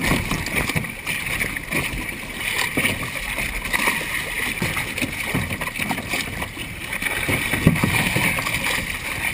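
Water sloshing and splashing between a plastic sit-on-top kayak and the side of a boat, with irregular knocks as the kayak bumps and is handled against the hull.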